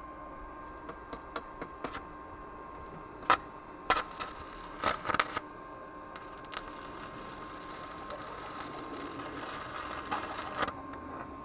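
Stick (arc) welder with a 2.5 mm electrode on steel: a series of sharp cracks as the arc is struck, then the arc held and crackling steadily for about four and a half seconds before it cuts off suddenly near the end.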